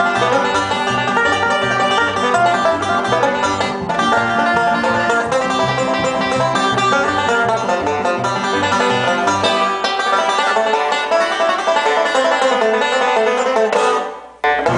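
Background bluegrass-style music led by a picked banjo over a bouncing bass line; the bass drops out about two-thirds of the way through, and the music cuts out for a moment near the end.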